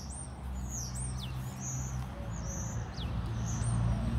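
Small birds chirping, short high chirps, some falling in pitch, repeating every half second or so, over a steady low hum.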